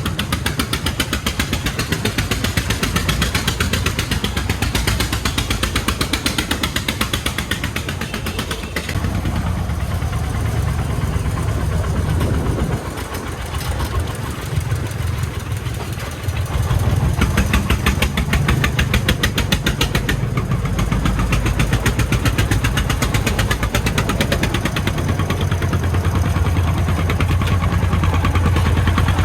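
Single-cylinder diesel engine of a homemade công nông farm truck running with a fast, even chugging. It drops a little in level for a few seconds past the middle, then picks up again.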